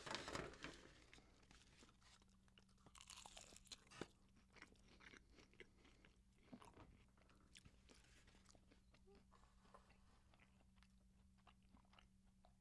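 Faint crunching and chewing of flaky baklava, phyllo pastry with walnuts and syrup, loudest in the first second and then scattered small crackles as it is chewed.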